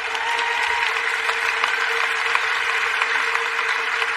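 Large audience applauding steadily, a dense patter of many hands clapping at once.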